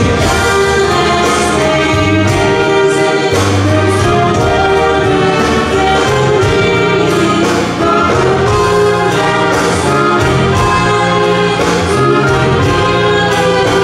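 Live dance-band music from keyboard and accordion: a held, brass-sounding melody over a steady bass line.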